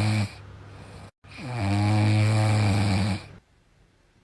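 An animal snoring loudly with deep, steady, drawn-out snores. One snore ends just as the sound begins, and a second starts about a second and a half in, dropping briefly in pitch before holding level, and stops about three seconds in.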